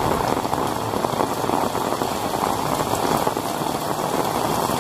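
Heavy rain falling steadily on a wet paved road, a continuous even hiss of rain.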